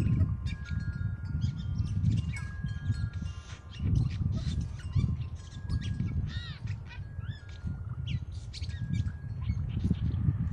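Blue jay calling in a run of short beeping whistles, clicks and chirps, some sweeping up and down in pitch, like R2-D2's beeps. Wind chimes ring with held tones behind it, over a low rumble.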